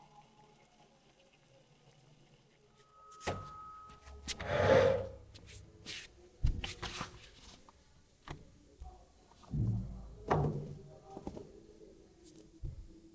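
Scattered knocks and thuds of objects being handled, starting about three seconds in after a short quiet stretch, with a louder, longer scrape or rustle a little over a second later.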